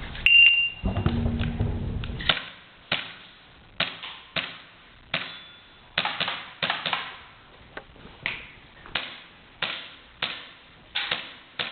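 An IPSC shot-timer start beep, a single short high tone, followed about two seconds later by a string of sharp airsoft pistol shots, seventeen or so, several fired in quick pairs.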